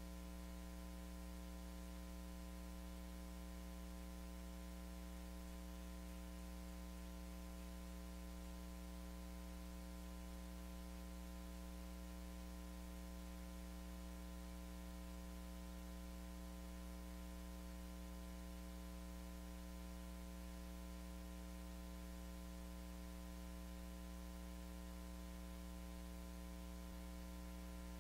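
Steady electrical mains hum, a set of even, unchanging tones over a faint hiss, with no other sound: the microphone was left switched off, so the hammering is not picked up.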